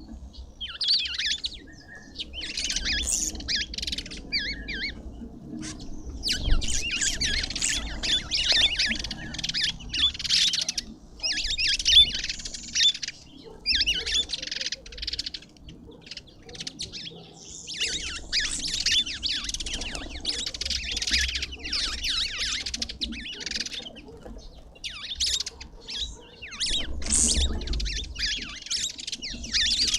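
Several birds chattering and twittering in dense bursts of a few seconds each, with short pauses between, over a faint low background rumble.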